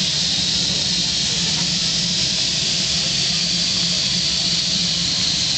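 Steam engine hissing steadily with escaping steam, over a low steady hum, without beats or pauses.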